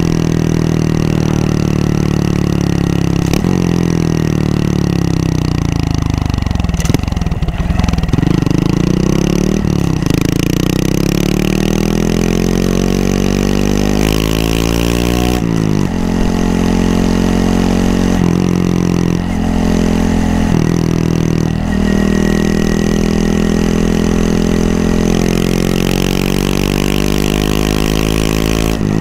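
Honda Monkey 125's single-cylinder four-stroke engine heard while riding. The revs drop off steeply, then climb again in a series of rising sweeps broken by gear changes.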